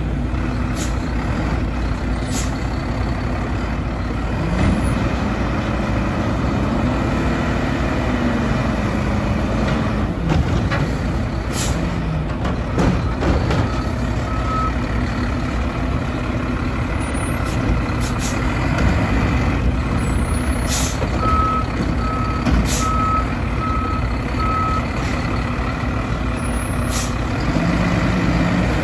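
Mack LR front-load garbage truck with an Amrep body working a dumpster. The engine revs up and down to drive the hydraulic forks as they lift the container overhead and dump it, with a few sharp air hisses and clanks. Its reversing alarm gives a short beep around the middle, then a run of about five beeps.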